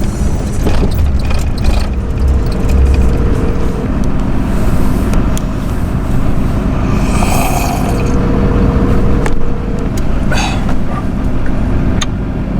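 Motor vehicle driving: steady engine and road rumble.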